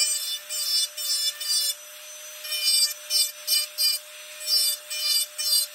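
Rotary carving handpiece running with a steady whine while its diamond bit grinds into wood in short repeated strokes, relieving a carved bird's tail feathers.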